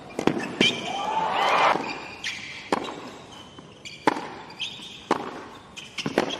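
Tennis ball struck twice in quick succession as a rally ends, then a short crowd reaction swelling about a second in. After that the ball is bounced several times on the hard court before a serve, each bounce a sharp single smack.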